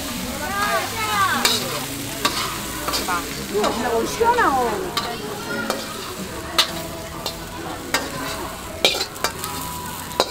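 Metal spatula scraping and knocking against a wok as fried noodles are pushed out into a paper bowl, over a steady frying sizzle. Squealing scrapes come in the first half and a run of sharp taps follows.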